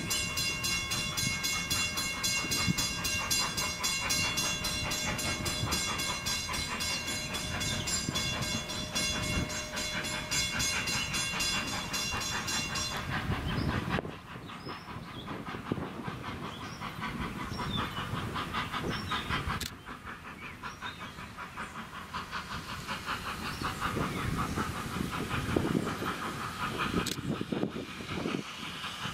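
Steam locomotive approaching under power, its exhaust chuffing in an even rhythm. A steady high tone sounds over roughly the first half and cuts off sharply. Rail noise and steam hiss come up as it nears.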